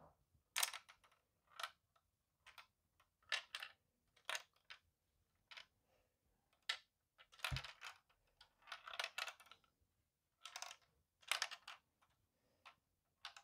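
A small ball rolling through a hand-tilted LEGO brick maze (LEGO 40596 Magic Maze), clicking and rattling irregularly against the plastic walls, with one duller knock about seven and a half seconds in.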